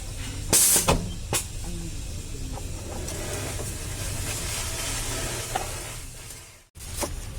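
Workshop sounds during gearbox reassembly: a short, loud hiss about half a second in, a few sharp metallic clicks, over a steady low hum. The sound cuts out briefly near the end.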